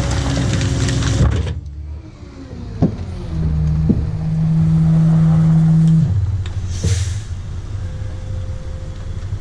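Rear-loader garbage truck's engine and hydraulic packer running. It is loud at first and drops off about one and a half seconds in, then a steady revved hum holds for about three seconds. A few sharp clanks and a brief hiss come about seven seconds in.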